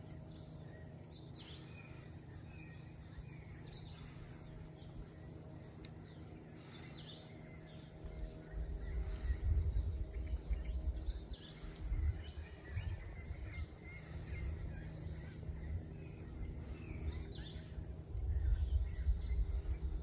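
Rainforest ambience: scattered short bird chirps and calls over a steady high insect buzz. From about eight seconds in, a low gusty rumble of wind buffeting the microphone comes and goes and is the loudest sound.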